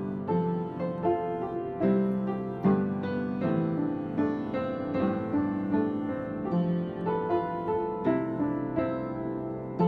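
Background piano music, notes struck one after another over sustained chords.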